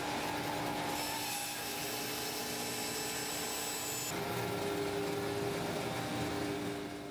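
Woodworking bandsaw running, a steady machine hum with blade and motor tones that shift about a second in and again about four seconds in, beginning to fade near the end.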